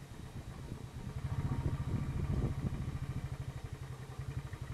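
Motorcycle engine running at low speed as the bike rolls up and stops, a steady low rhythmic thump that grows louder for a second or so around the middle, then settles to idle.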